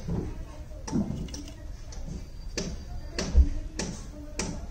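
House sparrow pecking at cooked rice in an aluminium pot, its beak making irregular sharp ticks against the metal, about one or two a second. A dull thump about three and a half seconds in is the loudest sound.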